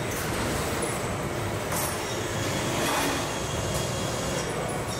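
Car assembly-line machinery noise: a steady mechanical drone with faint steady whines and short hisses about two and three seconds in.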